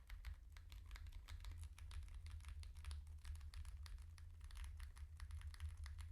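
Typing on a TKL mechanical keyboard with stock Gazzew x Smith + Rune U4Tx Plum tactile switches in an FR4 plate with Poron foam: a fast, continuous run of keystroke clacks that stops at the very end.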